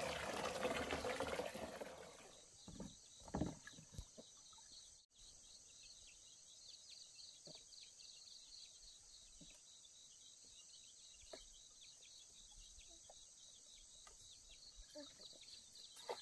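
Insects chirping steadily, a high, rapid pulsing, with a few faint knocks. A louder noise fades out in the first couple of seconds.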